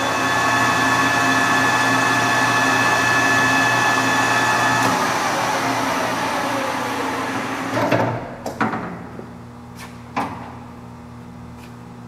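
Acer Dynamic 1760G geared-head engine lathe running at about 885 RPM, a steady gear whine over the spindle hum. About five seconds in, the whine falls in pitch and fades as the spindle coasts to a stop, followed by a few sharp clunks.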